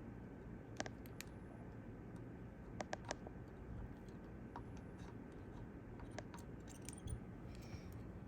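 Scattered short, sharp metal clicks of small hand tools working capacitor leads on a circuit board, over the steady hum of an air-conditioning unit.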